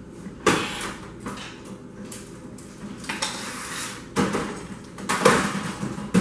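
Stainless-steel sheet-metal housing of a commercial radiant toaster clanking and scraping as the unit is lifted and shifted, with about five separate metal knocks and scrapes.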